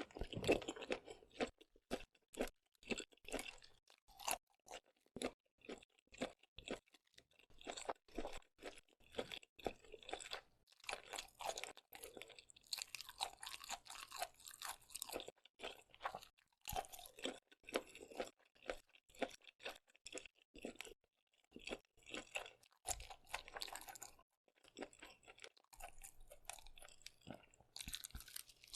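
Close-miked chewing and crunching of seafood such as squid, shrimp and octopus, a steady run of wet crunches and smacks with short pauses.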